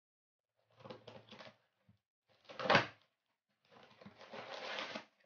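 Scissors slitting the packing tape on a cardboard parcel in a few quick strokes, then the box being torn open: one loud rip a little past halfway, and a longer rustle and scrape of the cardboard flaps near the end.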